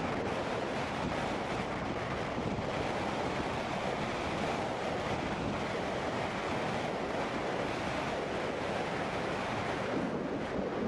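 Steady wind noise rushing over the camcorder microphone.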